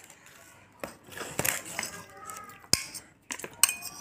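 Metal spoon cutting cake on a glass saucer, scraping and clinking against the glass, with a sharp clink near the end.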